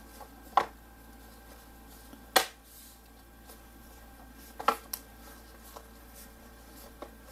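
Lenovo IdeaPad S340 laptop's bottom cover being pressed onto the chassis, its retaining clips snapping into place: a handful of sharp, separate clicks spread over several seconds.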